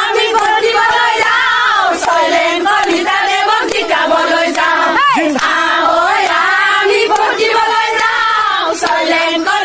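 A crowd of supporters, mostly women's voices, chanting and cheering slogans together, with one loud rising shout about five seconds in.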